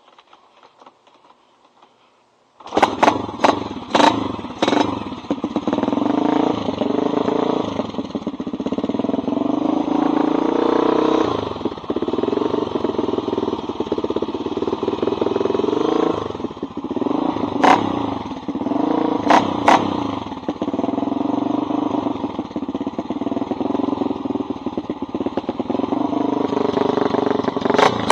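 A 1985 Honda XR350R's single-cylinder four-stroke engine bursts into life about three seconds in through a loud pipe. It runs with its revs rising and falling, and a few sharp cracks come at first and again later on.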